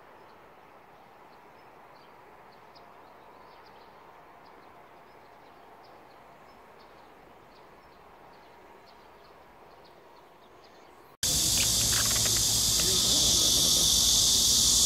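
Faint outdoor background with light high ticks for about eleven seconds, then suddenly a loud, steady, high-pitched chorus of insects chirring.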